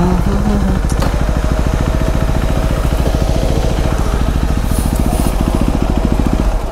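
BMW G 310 RR's single-cylinder engine running steadily while riding, with wind rush.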